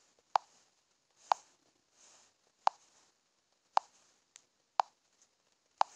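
A series of about seven short, sharp clicks, irregularly spaced at roughly one a second.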